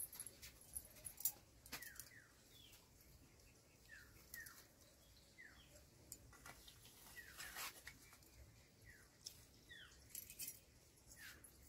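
Near silence with a bird chirping faintly in the background, short falling chirps repeating irregularly every second or so. Scattered light clicks of handling are also heard.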